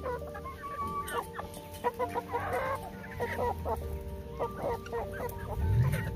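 Chickens clucking: several birds giving short, irregular clucks over soft background music of held notes, with a brief low rumble near the end.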